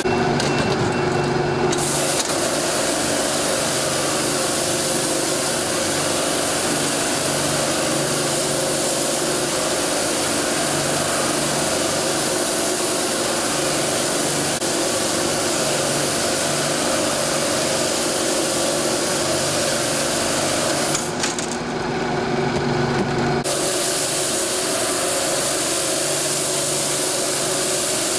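Cheese-wheel brushing machine running, its rotating brushes scrubbing the rind of a large aged hard-cheese wheel as it turns between the rollers: a steady scraping rush over a motor hum. The high hiss drops away briefly about three-quarters of the way through.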